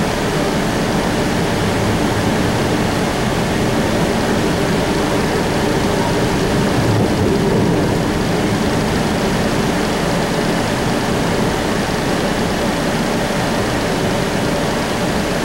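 Steady running noise of an electric streetcar in motion, heard from inside the car: wheels rolling on the rails with a faint steady motor hum underneath.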